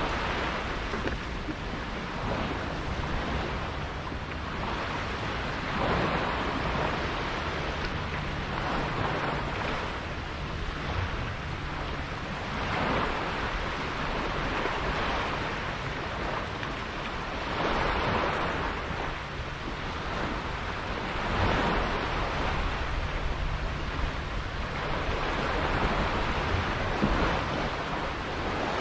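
Sea water rushing and splashing past a sailboat under way, swelling every few seconds, with wind buffeting the microphone.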